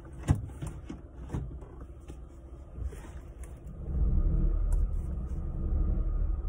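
A few sharp clicks and knocks inside a car as a child handles the steering wheel and dashboard controls, the loudest about a third of a second in; from about four seconds in a steady low rumble sets in.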